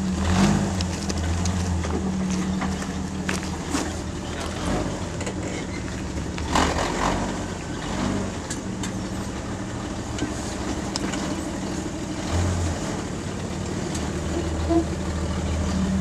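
Small off-road 4x4's engine running steadily at low revs while rock crawling over boulders, with occasional knocks and a noisy scrape about six and a half seconds in.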